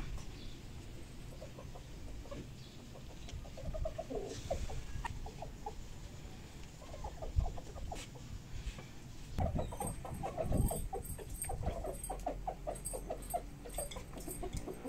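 Domestic chickens clucking in their coop: runs of short, quick clucks, sparse at first and coming thick and fast for the last few seconds.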